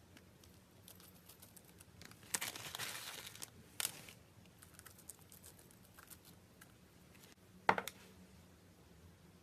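Slime being handled, making faint crackles and small pops, with a denser burst of crackling about two seconds in and a sharp pop near the end.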